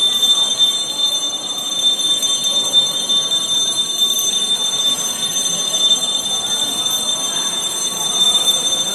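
Crowd noise: a large crowd murmuring, with no clear words, under a steady high-pitched whine.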